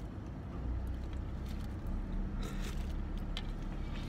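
Low steady rumble of an idling car, heard inside the cabin, with a few short clicks and noisy bursts from eating with chopsticks out of a paper cup.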